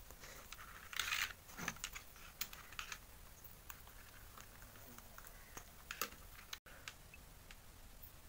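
Faint scattered clicks and rustles of a keyboard's USB cable being handled and its plug pushed into a phone's OTG adapter, with a brief louder scuff about a second in.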